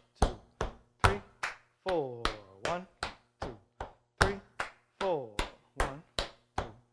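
Tap shoes stepping on a wooden floor in a steady rhythm, about two to three sharp taps a second, each a crisp click that dies away quickly.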